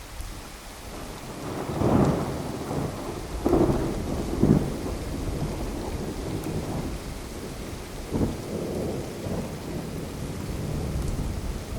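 Thunder rumbling over steady rain, with several loud peals about two, three and a half, and four and a half seconds in, and another about eight seconds in.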